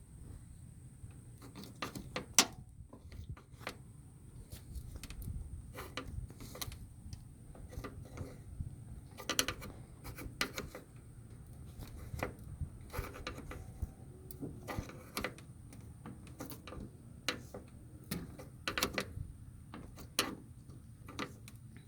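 Irregular clicks, taps and small knocks of a trim tool prying the plastic retaining clips of an old door panel on a 1986 Nissan D21 pickup, a few at a time with pauses between.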